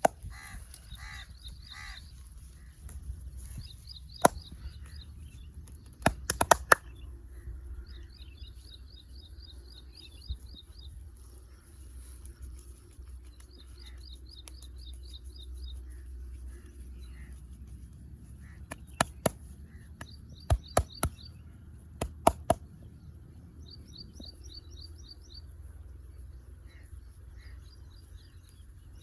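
A bird repeats a quick trill of short high notes every few seconds. Groups of two to four sharp hand slaps of a head and shoulder massage are the loudest sounds, about four seconds in, around six to seven seconds, and again between nineteen and twenty-three seconds, over a low steady outdoor rumble.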